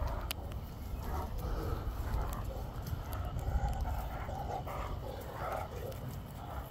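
Two Great Danes play-wrestling, with repeated short rough dog vocal sounds and a few light clicks, over a steady low rumble.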